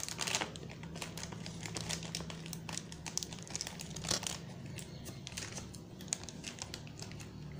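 Knife scoring and cutting through a slab of jaggery brittle (gur gachak) packed with chickpeas and peanuts: scattered crackling and crunching scrapes as the blade presses through the still-soft candy.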